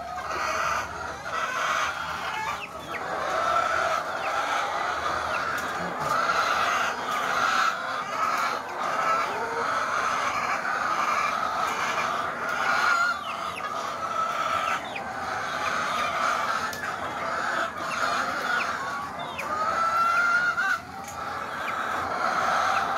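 A flock of caged laying hens clucking and calling continuously, many voices overlapping, with a few short rising calls standing out.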